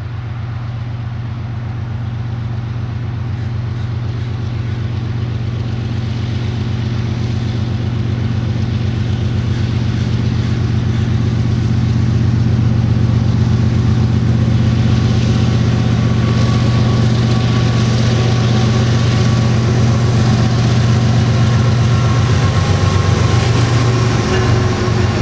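Diesel engines of two GE ES44AC locomotives (GEVO-12 V12) leading a loaded crude oil train, a steady low drone that grows louder as they approach. It reaches full strength about halfway through and holds as the units pass close by near the end.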